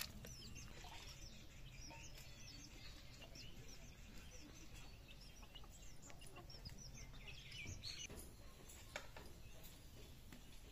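Faint chirping of birds: many short, high chirps in scattered runs, busiest about a second in and again near the end, over quiet outdoor background noise.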